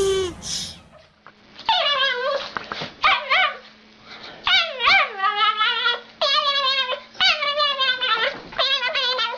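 A dog whining and yipping in a run of drawn-out, high-pitched cries that waver up and down in pitch, about one a second.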